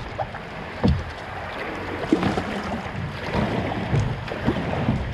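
Water splashing and rushing around a kayak on a river, with a few sharper splashes or knocks about a second in, a little after two seconds and near the end. Wind buffets the microphone.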